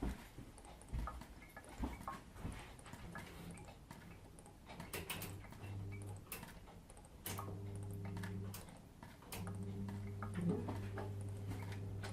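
Scattered light clicks and taps of kitchen handling, then, from about halfway, an electric oven just switched on, running with a low, steady electrical hum that stops and restarts a couple of times.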